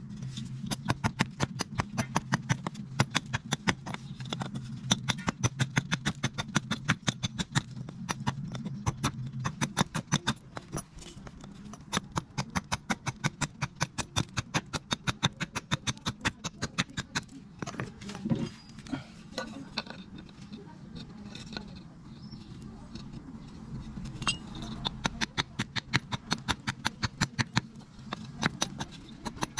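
Small hatchet striking the end of a wooden axe handle in quick, steady taps, about four a second, which grow sparser and uneven in the middle with one heavier knock, then speed up again near the end. Background music under it.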